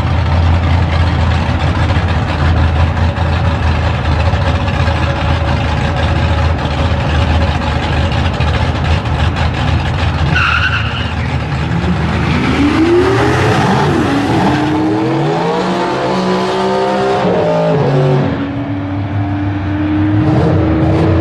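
Drag-racing cars' engines: a deep, steady rumble for about ten seconds, then a brief high squeal. The engines then rev up in pitch in two rising sweeps before falling away, and end on a steady drone that slowly climbs.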